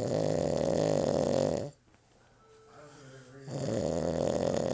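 Loud snoring: one long snore, about two seconds of quieter breathing, then another long snore.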